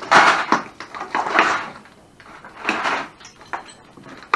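A VCR being smashed: three crashing impacts of plastic and metal, each with clattering debris, about a second and a half apart, then a sharp knock near the end.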